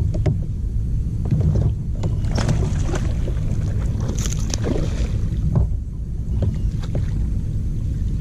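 Water splashing and gear knocking against a fishing kayak, with scattered sharp clicks, over a steady low rumble. The splashing and clicks are busiest in the middle.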